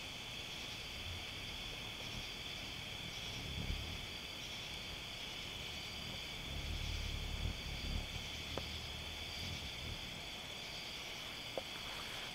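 A steady, high-pitched chorus of evening insects, such as crickets or katydids, running without a break. Low rumbling bursts come and go under it, heaviest a little past halfway, with a few sharp clicks near the end.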